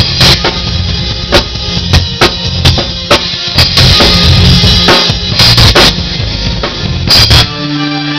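Drum kit played hard in a live rock band, with frequent cymbal crashes, snare and bass drum over a steady low note. A little past seven seconds in the drumming stops and a held chord rings on.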